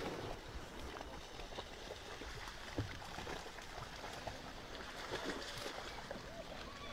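Water sloshing and splashing as a hippopotamus wades through shallow muddy water, with scattered small clicks.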